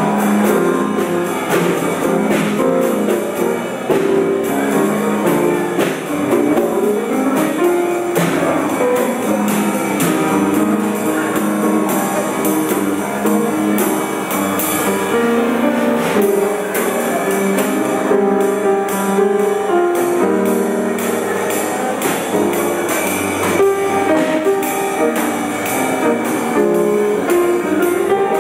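Live music played on an upright piano together with a djembe and a drum struck with sticks, with many quick percussion strikes over the piano's notes.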